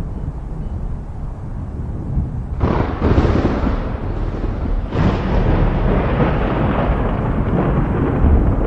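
Thunder: a low rumble building, then a sharp crack about two and a half seconds in and another about five seconds in, each rolling on into a long rumble.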